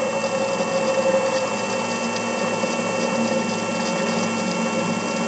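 Electric motor run from a small Chinese variable-frequency drive, its speed being turned down from 50 Hz toward 18 Hz: a steady mechanical hum with a thin high whine, one tone in it fading out in the first couple of seconds.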